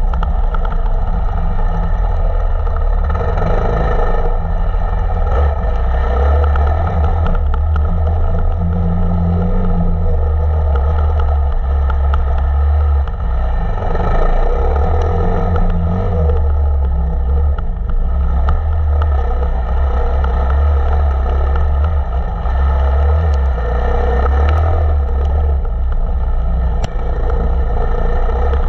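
Enduro motorcycle engine running continuously while the bike is ridden, loud and steady, with a heavy low rumble and scattered short clicks and clatter.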